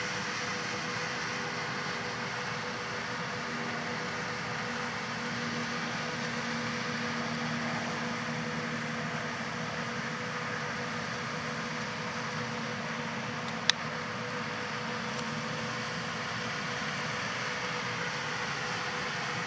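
John Deere 8000R tractors pulling Amadas peanut combines, diesel engines and combine machinery running as a steady drone with a faint hum. A single sharp click comes about two-thirds of the way through.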